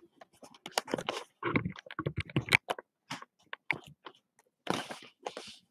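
Hands handling a cardboard trading-card box: irregular crinkles, taps and crunches, with a longer rustling scrape about five seconds in.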